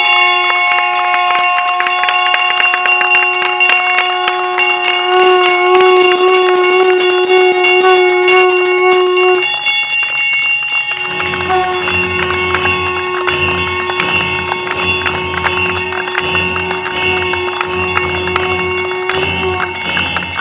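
Conch shell (shankh) blown in long, steady, pitched blasts: one of about nine seconds that wavers near its end, then after a short pause a second long blast, and a third starting at the very end. Under it run rapid hand claps and bell ringing, and a low pulsing beat joins in with the second blast.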